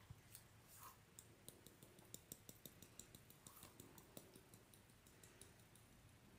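Faint, quick, irregular clicking, several clicks a second, from a small container of glitter being tapped and shaken to sprinkle it.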